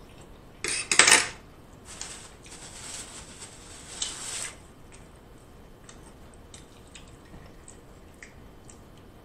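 A metal fork clinks sharply against a dish about a second in, followed by a few seconds of close-up chewing noise; a few faint small ticks follow near the end.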